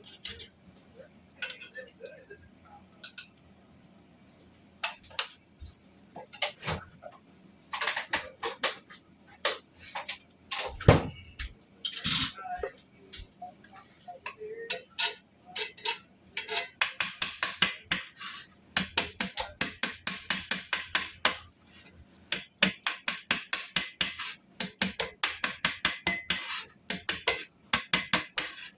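A cooking utensil knocking and scraping against a pan as eggs are mixed and scrambled with gochujang: scattered knocks at first, then from about halfway a fast, steady run of clicks, several a second.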